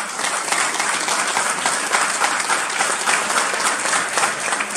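Audience applauding, a dense, steady patter of many people clapping.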